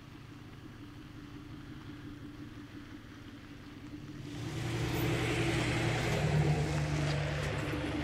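Chevrolet Silverado ZR2 pickup's V8 running at low speed as it tows a teardrop trailer along a gravel road. About four seconds in it draws close and the sound swells, with tyre noise on the gravel joining the engine's low hum.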